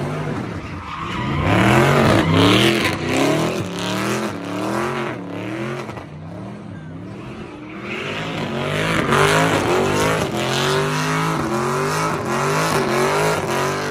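A car doing donuts: its engine revs climb and drop about twice a second, with the tires screeching on the pavement. It runs in two long bursts, with a lull in between.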